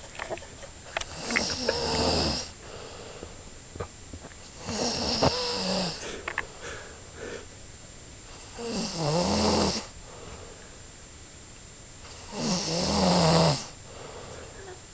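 Snoring from a sleeper who is sick: four long snores about four seconds apart, each lasting around a second, with faint clicks in the pauses between.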